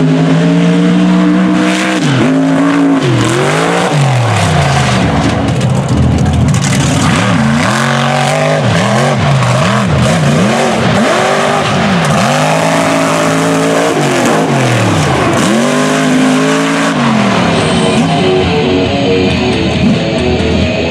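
A mega truck's engine racing at full throttle, its pitch climbing hard and then dropping back many times as the driver accelerates, lifts and gets back on the gas through the turns of a dirt course.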